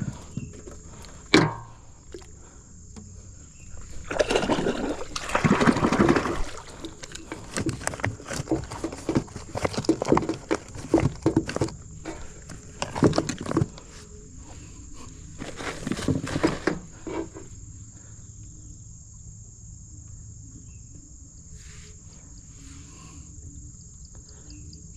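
Water splashing and sloshing in irregular bursts for about thirteen seconds, then dying away, over the steady high chirring of crickets.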